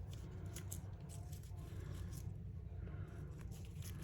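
Paper being handled at a craft table: light crinkles and a scatter of small ticks, over a steady low hum.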